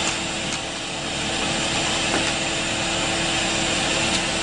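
Bee vacuum running steadily while its hose sucks live honeybees off the comb of a feral hive: a constant motor hum with a thin high whine over it, and a few faint ticks.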